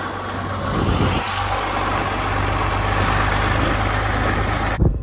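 Farm machinery engine running steadily with a low hum and a broad rushing noise over it; it cuts off suddenly near the end.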